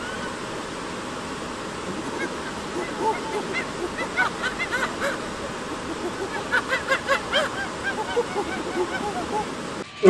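Steady rush of running water, with many short, rising-and-falling chirping calls coming in clusters from about two seconds in.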